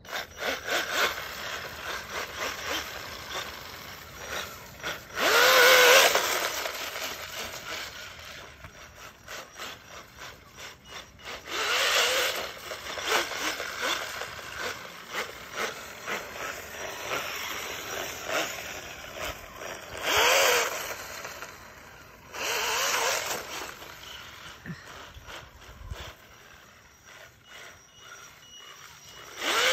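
Radio-controlled snowmobile running over snow: its electric motor whines up and down in pitch in several short bursts of throttle, over a steady rapid rattle from the track.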